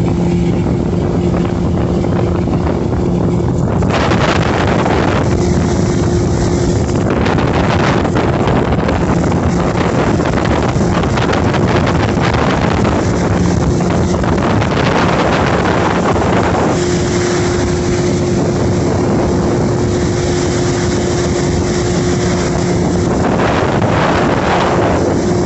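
Motorboat engine running steadily at speed, with a low hum. Wind buffets the microphone in surges that now and then drown out the engine.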